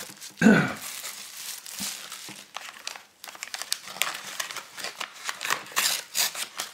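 Plastic packaging crinkling as bubble wrap and an anti-static bag are handled, with one louder short handling noise about half a second in. From about two and a half seconds the crackle thickens into a dense run of sharp crinkles as the anti-static bag is turned over in the hands.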